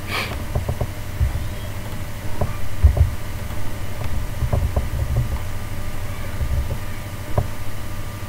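Low, uneven rumbling noise on the microphone, with scattered faint clicks of a computer mouse and keyboard and a short hiss at the start.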